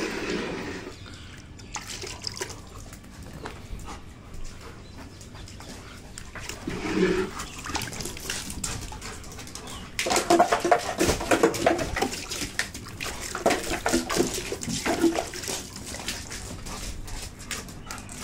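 Black Labrador making a run of short, pitched cries starting about ten seconds in, with scattered clicks and scuffs around them.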